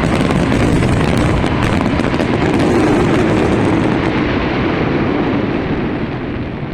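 Fireworks display: a dense volley of booms and crackling that begins to die down about four seconds in.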